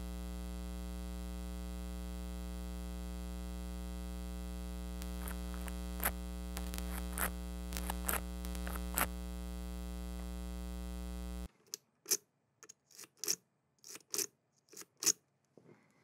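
Steady electrical hum and buzz from a piezo crystal contact microphone on a brass padlock, with its gain turned up to 60. This is noise on the line that nearly buries the lock sounds. Faint clicks of a lock-pick rake working the lock come through it from about five seconds in. The hum cuts off suddenly after about eleven seconds, leaving scattered sharp clicks of the raking.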